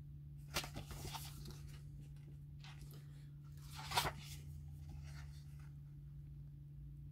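Pages of a large photo book being turned by hand, with two short paper rustles, one about half a second in and a louder one about four seconds in. A steady low hum sits underneath.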